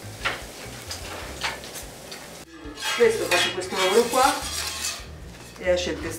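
A few metal clinks and scrapes of cast-iron pans and lids being handled on a wood-fired range, followed by a woman speaking Italian.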